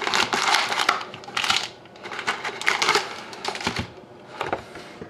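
Trading-card packs and their cardboard box being handled: foil wrappers crinkling and crackling in several bursts, with light clicks and taps.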